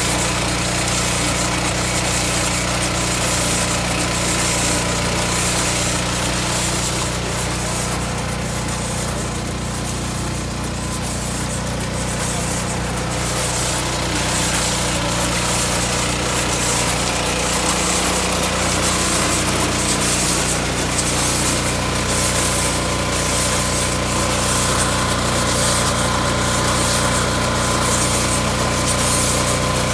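Truck-mounted wheelie-bin washer running, its high-pressure wash system spraying water inside an upturned commercial bin: a steady machine drone under a loud hiss of spray. The hiss eases for a few seconds in the middle.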